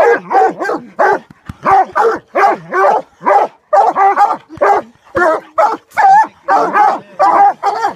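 Coonhounds barking at a caged raccoon: a steady run of loud barks, about two a second.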